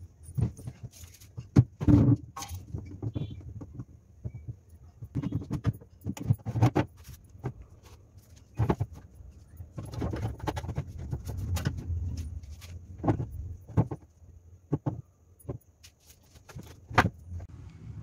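Vegetables and plastic being handled inside a refrigerator: produce set down on clear plastic shelves and drawers, giving irregular knocks, clatters and rustles.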